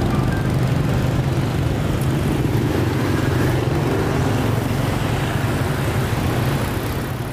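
Street traffic: motorbikes and cars running past, a steady dense hum of engines and road noise.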